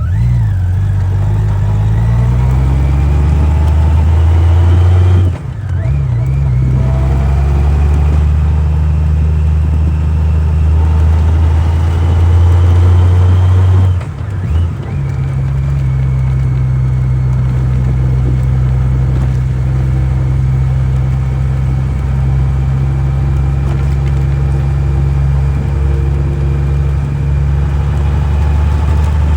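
Honda Gold Wing GL1500SE's flat-six engine under way. It pulls up through the gears, with a rising pitch broken by two gear changes about 5 and 14 seconds in, then holds a steady cruise.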